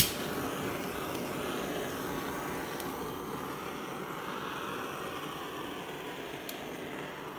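A sharp click at the start, then a handheld gas torch burning with a steady hiss as its flame is played over wet acrylic paint to bring up cells.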